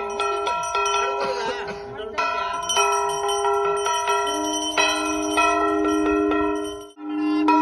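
Puja bells rung over and over, many overlapping ringing tones, for the aarti. About four seconds in, a conch shell (shankha) joins with one long steady note. The sound cuts out for a moment near the end and comes straight back.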